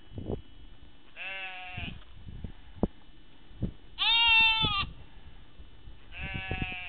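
A sheep bleating three times, each call under a second long. The middle call is the loudest.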